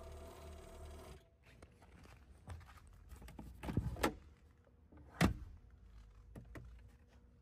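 Handling noise inside a car cabin: rubbing and scraping with scattered clicks, and two louder knocks about four seconds and five seconds in, as interior trim is handled. A faint steady hum cuts off about a second in.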